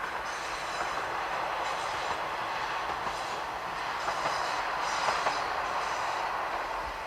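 KiHa 120 diesel railcar running past on the track, with high wheel squeals coming and going several times over the steady running noise, which eases off near the end.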